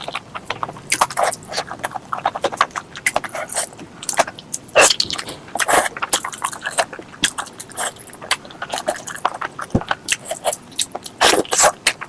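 Close-miked mouth sounds of eating pork leg curry with rice: chewing with a quick, irregular run of wet clicks and lip smacks.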